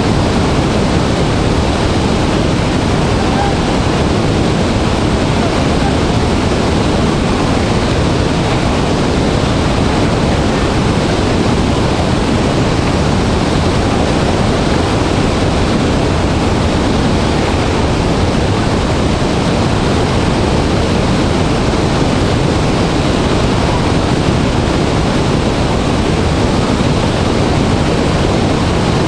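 Large waterfall at high flow: a steady, unbroken rush of falling water, heaviest in the low range.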